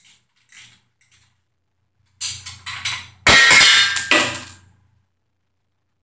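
Socket ratchet and steel rod nuts on a Ford 302 V8's connecting rods, taking off the rod nuts: a few faint ticks, then from about two seconds in a run of sharp metallic clicks and clanks. The loudest stretch lasts about a second, then it stops.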